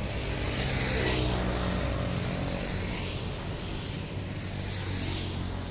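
An engine running steadily with a low hum, under a rushing noise that swells about every two seconds.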